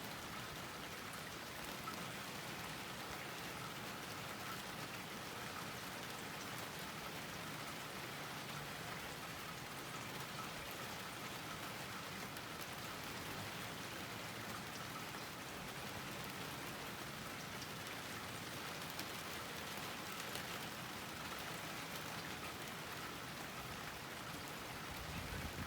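Steady rain falling on a garden, an even hiss with scattered drops pattering.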